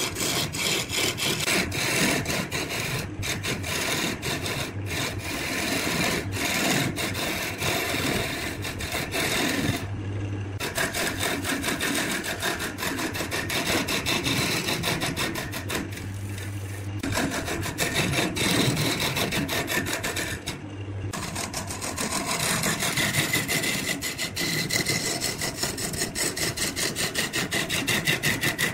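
Steel turning chisel cutting into a large wooden blank spinning on a wood lathe: a continuous rough scraping of the cut. The cut breaks off briefly three times, about a third of the way in, just past halfway and about three-quarters through, leaving only the lathe's low hum.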